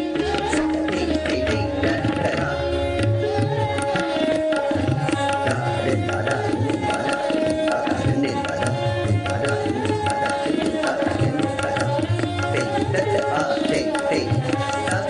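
Indian classical music for a Kathak dance: tabla drumming in quick strokes over held melodic notes.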